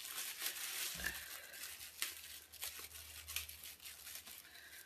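Tissue paper wrapping rustling and crinkling as it is carefully peeled open without tearing. A low hum runs underneath for a few seconds.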